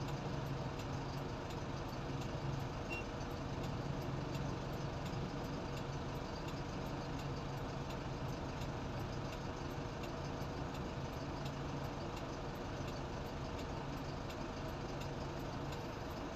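An engine running steadily aboard a river car ferry: an even, unbroken drone with a low hum that eases slightly near the end.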